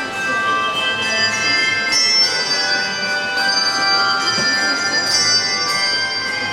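Bell choir playing a piece: many bell notes ringing and overlapping, with new high notes entering around two seconds in and again near five seconds.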